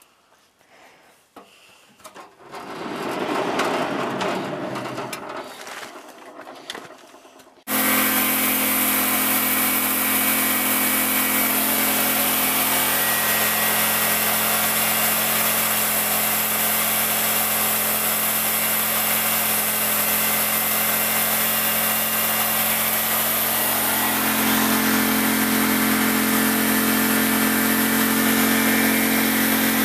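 Small band sawmill running and cutting through a log: a steady engine hum with the blade's sawing noise, starting abruptly after a softer swelling noise and growing a little louder near the end.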